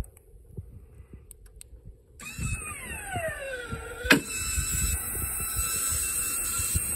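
Battery-powered linear actuator of a Box Bullet seed box opener whirring as it pulls a pro box slide gate open: it starts about two seconds in with a whine falling in pitch, gives a sharp click about four seconds in, then keeps running steadily. Wheat pouring out of the opened gate adds a steady hiss.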